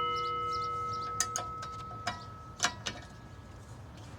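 A steel wrench rings with a clear metallic tone after knocking against metal. The ring fades and is cut off by a click near three seconds in, and a few light metal clicks and taps come as the wrench works a bolt.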